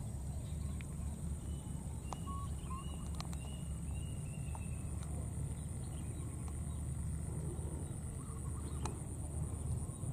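Outdoor ambience: a steady low rumble of wind on the microphone. A few faint, short, high chirps come in the first half.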